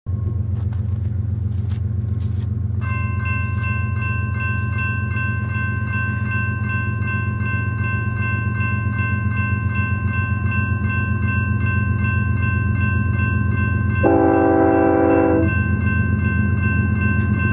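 Grade-crossing warning bell ringing steadily with rapid repeated strikes over a steady low rumble. About fourteen seconds in, the approaching train's air horn sounds one blast of just over a second.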